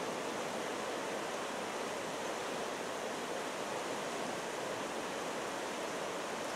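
Shallow upstream river running steadily over rocks and gravel riffles.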